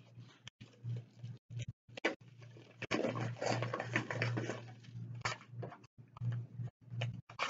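Paper rustling and crackling as a manila envelope is handled and the bid documents are drawn out of it, busiest in the middle, over a steady low electrical hum. The sound keeps cutting out for split seconds.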